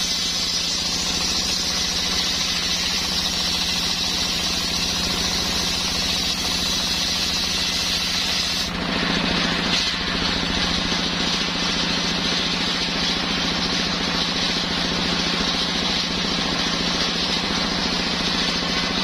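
Homemade engine-driven circular sawmill running steadily while sawing coconut wood, the engine's steady pulsing under a high hiss from the blade, with a brief dip about nine seconds in.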